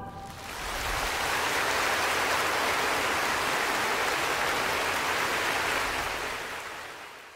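Large arena audience applauding. The last choir-and-orchestra chord dies away at the very start, the applause swells up about half a second in, holds steady, and fades out near the end.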